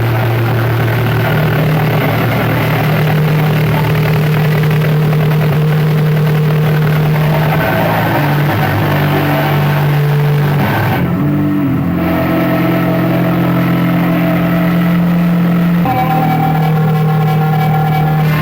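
Harsh noise music: a loud, dense wall of distorted noise over sustained low droning tones that step to new pitches every few seconds, with the top end cutting out briefly around the middle.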